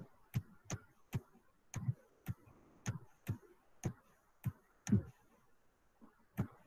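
Computer mouse button clicking again and again, about two clicks a second and unevenly spaced, as pen strokes are drawn on screen.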